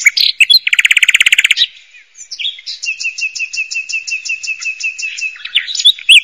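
Bird song: a loud, rapid buzzy trill about a second in, then a long run of quick repeated high chirps, roughly eight a second.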